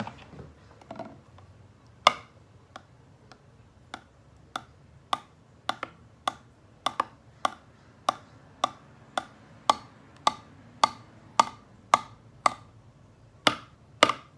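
A stirring utensil knocking against the side of a glass baking dish while thick slime mixture is stirred by hand: sharp clicks about two a second, starting about two seconds in, fairly even but not machine-regular.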